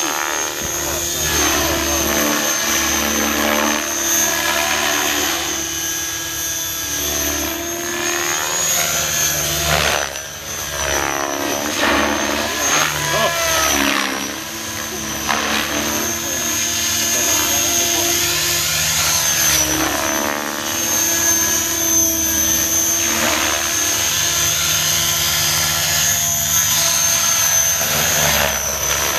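Radio-controlled model helicopter flying aerobatics: a steady high whine from its rotors and motor that swells and sweeps up and down in pitch as it manoeuvres and passes.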